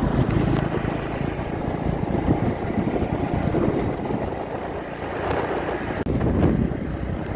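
Wind rushing over the microphone on a moving motorcycle, mixed with the bike's engine and road noise. The sound drops out for an instant about six seconds in.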